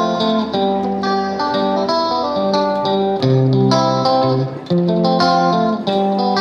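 Background music: a plucked guitar picking a steady melody, a new note every fraction of a second.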